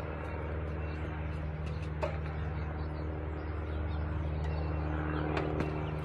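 A steady machine hum with several low tones, and a few faint knocks and taps, one about two seconds in and a few more near the end.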